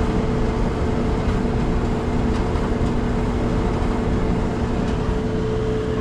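Whirlpool electric dryer running on test: the drive motor and tumbling drum make a steady hum with a low rumble and no thump, a sign that the machine is running well.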